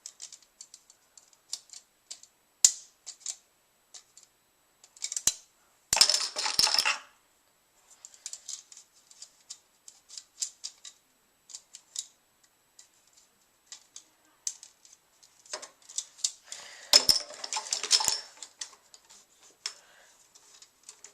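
Hard plastic Connect 4 parts clicking and clattering as they are handled and pushed together to assemble the grid, with two longer spells of rattling about a third of the way in and again near the end.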